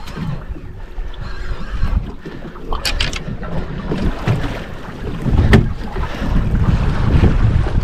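Wind buffeting the microphone over water sloshing against a small boat's hull, with two sharp knocks.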